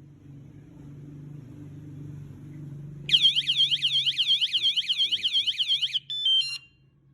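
Battery-powered bike and motorcycle anti-theft alarm sounding: about three seconds in, a loud fast warbling siren starts, about six sweeps a second, and runs for three seconds. It ends in a short run of stepped beeps at changing pitches, then cuts off. A faint low hum comes before it.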